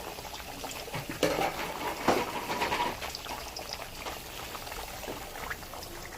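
Yam slices and onion chunks frying in a pan of hot oil, sizzling and crackling steadily, with a couple of sharper, louder sounds about a second and two seconds in.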